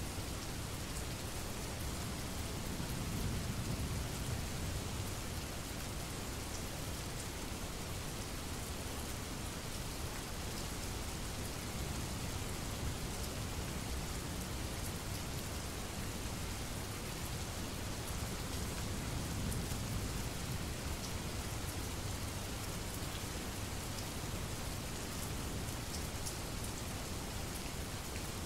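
Steady rainfall, with low rumbles of distant thunder swelling up about three seconds in and again near the twenty-second mark.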